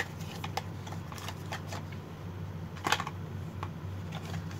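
Packaging of a small lipstick gift box crinkling and rustling as it is opened by hand, with scattered small clicks and one sharper crackle about three seconds in.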